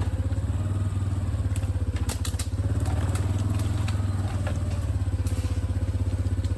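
ATV engine running steadily with an even low pulsing while being ridden, with a few sharp clanks about two seconds in.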